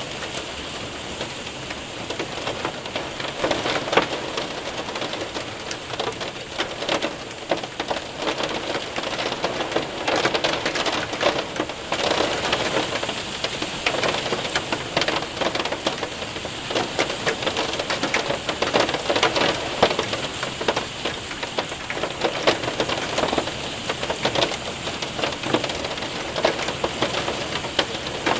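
Hail and heavy rain hitting a window and roof: a steady wash of rain with many sharp ticks and pattering impacts of hailstones, coming in denser spells.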